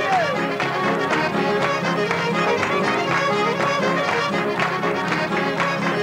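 Traditional Québécois dance tune played live on violin, accordion and guitar, with a steady beat.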